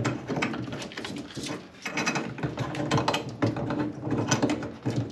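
Metal union nut on a central heating pump being spun onto its thread by hand, with the pump body jiggled into place: a rapid, irregular clicking and rasping that comes in clusters.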